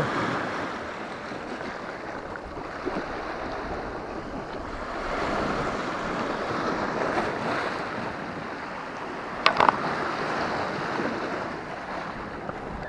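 Sea waves surging and washing over a rocky shoreline, swelling and easing, with two short sharp clicks close together about three-quarters through.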